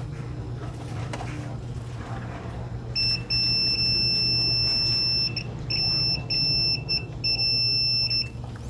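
Multimeter continuity beeper sounding as its probes are held across a circuit-board trace: a steady high beep starts about three seconds in and holds for about two seconds, then breaks into several shorter beeps as the probe contact comes and goes. The beep signals continuity, that the trace is still unbroken.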